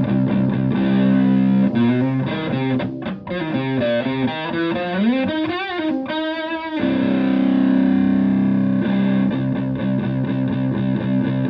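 Stratocaster electric guitar through an EarthQuaker Devices Hoof fuzz pedal, modded with depth and clipping options, into a Twin Reverb-style amp. It plays fuzzy chords, then about two seconds in a single-note lead line with bends and a wide vibrato on a high note. Near seven seconds it lands on a held chord that rings out, and rhythmic chord strikes follow.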